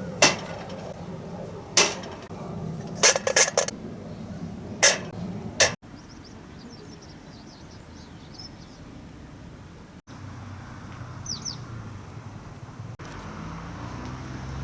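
Sharp knocks and clacks of hard objects being handled, six in the first six seconds, one a quick rattle of four. After that comes a quieter stretch with small birds chirping now and then, one clear falling chirp about eleven seconds in.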